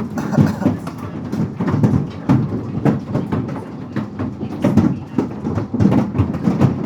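Heavy hailstorm: hailstones drumming on a metal roof in a dense, irregular clatter of many sharp impacts over a constant low rumble.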